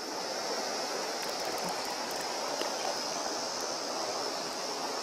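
Shallow mountain stream running over a rocky riffle: a steady rush of water, with a few faint ticks.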